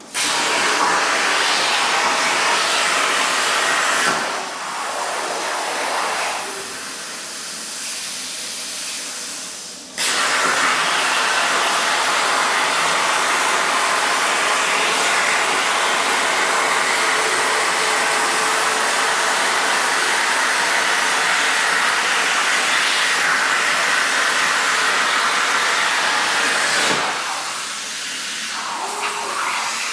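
CNC plasma torch cutting 16-gauge sheet steel: a loud, steady hiss that switches on abruptly, falls to a quieter level for several seconds about four seconds in, then comes back loud and eases down again near the end.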